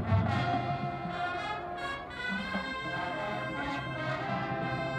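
Marching band playing its show opener: the brass section sounding held chords that change every second or so, with a few sharp percussion strokes near the start.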